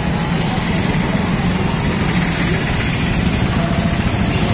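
Many motorcycles and scooters running at low speed in a procession, their engines blending into one steady drone.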